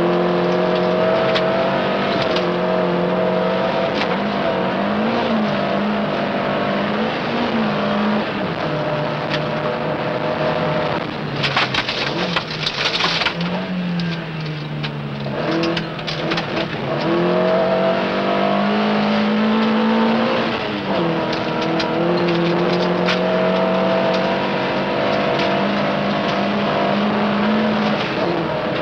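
Rally car engine at full throttle, heard from on board: its note climbs, drops and climbs again with each gear change and lift. A burst of rattling from gravel partway through.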